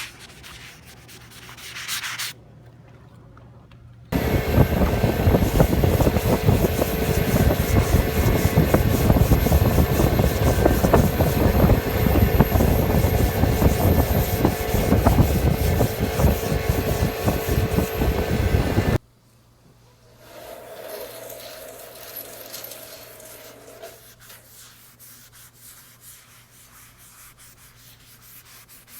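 Hand block sanding of primer on a truck bed panel: sandpaper on a sanding block rubbed over guide-coated primer, a rasping in strokes. Through the middle a much louder, dense rasping starts and stops abruptly, with a faint steady hum under it; quieter strokes follow near the end.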